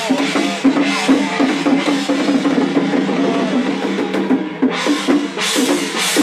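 Loud Chinese temple ritual percussion: drums beaten continuously with crashing metal percussion. The high crashing thins out briefly a little after four seconds in, then comes back.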